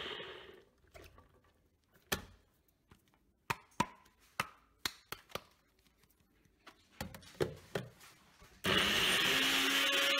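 Personal bullet-style blender: its motor dies away at the start as the cup is let up, then a string of sharp clicks and knocks as the jar is lifted off the base and set back on. About a second and a half before the end the motor starts abruptly, chopping the seasoning again.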